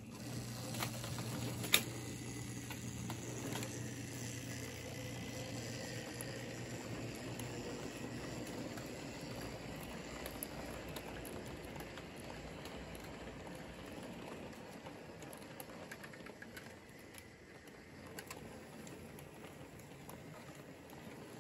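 Märklin HO-scale V60 diesel locomotive model with its train of dump wagons rolling past on the track: a steady rattle and ticking of small wheels over the rails. A low motor hum is heard until about seven seconds in, while the locomotive passes. There is one sharp click about two seconds in.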